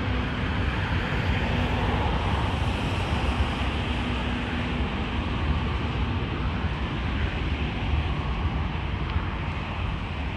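Airbus H145 rescue helicopter running on the ground with its twin engines and rotors turning, a steady deep rumble with a faint hum, as it prepares to depart. Wind buffets the microphone.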